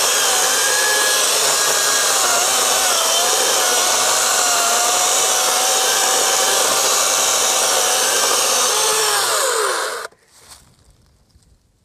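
Harbor Freight Atlas 40V brushless battery chainsaw cutting through a log, its motor whine wavering up and down under load. About nine seconds in the motor winds down with a falling pitch, and the sound then cuts off abruptly, leaving near silence.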